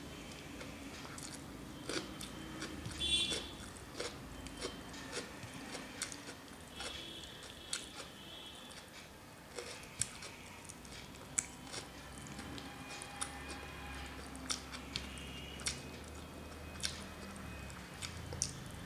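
Close eating sounds: a hand mixing rice and fish on a steel plate and mouth chewing, with many irregular sharp clicks and smacks.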